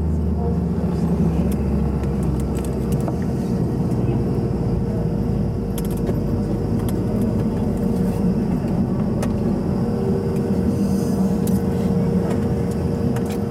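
Steady cabin rumble and hum of a Bombardier CRJ-200 parked at the gate, with a thin steady tone throughout. A deeper hum fades out in the first few seconds, and light clicks and rattles are scattered through it.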